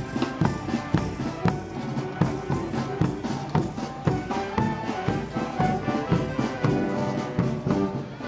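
Brass band playing festival march music over a steady drum beat.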